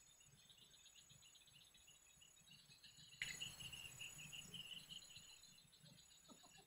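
Faint insects chirping in rapid trains of high pulses over a low hiss; the hiss steps up suddenly about three seconds in.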